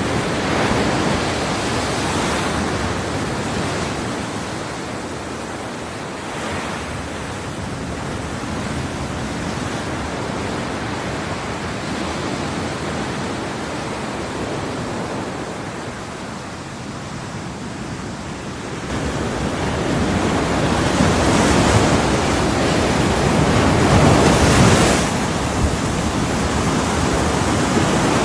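Ocean surf: a continuous rushing wash of waves that swells and ebbs, growing fuller about two-thirds in, with two stronger surges near the end.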